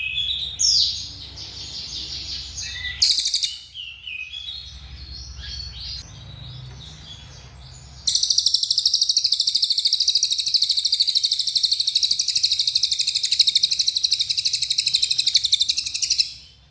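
A cililin songbird singing. Short varied chirps and phrases come first; then, about halfway through, it breaks into a long, fast, high trill that runs unbroken for about eight seconds before stopping near the end. This is the long 'nembak' (shooting) delivery that bird keepers prize.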